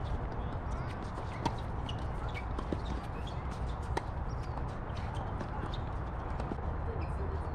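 Tennis ball being struck with rackets and bouncing on a hard court: a few sharp knocks, the clearest about a second and a quarter apart, over a steady low rumble.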